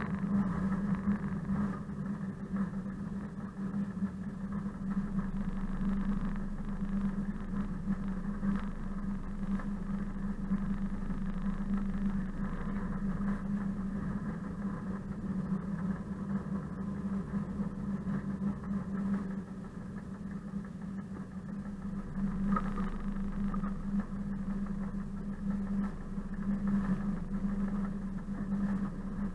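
Six-cylinder diesel engine of a ČKD class 742 diesel-electric locomotive running steadily as it moves along, a low even hum. It eases a little about two-thirds of the way through, with a brief clank just after.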